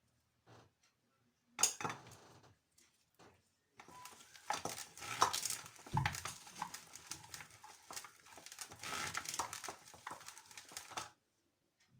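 Hand-cranked manual grinder mincing boiled dried figs into a paste: metal clicking and clattering, with a short burst about two seconds in, then steady grinding from about four seconds in that stops near the end.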